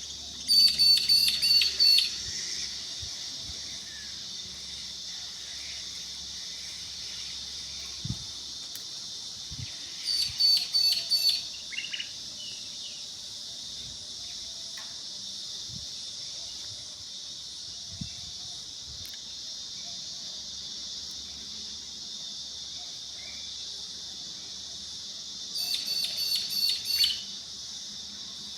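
A steady, high insect drone, broken three times by short bursts of rapid, repeated bird calls: near the start, about ten seconds in, and near the end.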